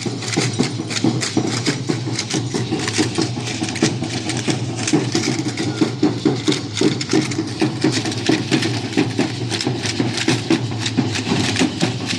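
Percussion for a danza guayulera: a drum beating steadily under a fast, dense clatter of clicks.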